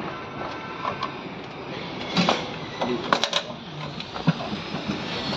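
Metal clanks and scrapes from work on a gearbox casing sitting in a galvanised steel tray, with a run of sharp knocks about two to four seconds in.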